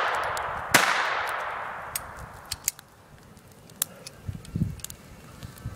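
A Jennings J-22 .22 pistol is fired once, about a second in, and the crack echoes and dies away over about two seconds. At the start, the echo of the shot before is still fading. After that come only a few faint clicks.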